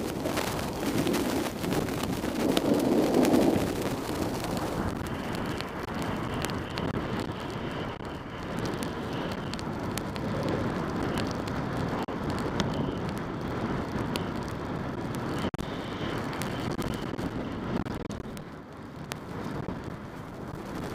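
Skis sliding and scraping over packed snow while skiing downhill, with wind rushing over the microphone. The wind buffeting is heaviest in the first few seconds, then eases to a steadier hiss.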